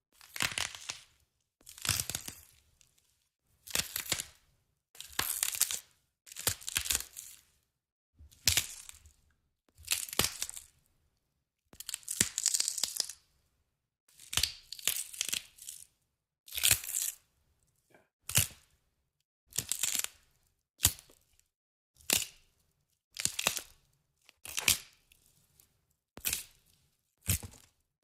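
A series of short, separate cracking and crunching sounds, about one every second or so, each cut off cleanly with silence between.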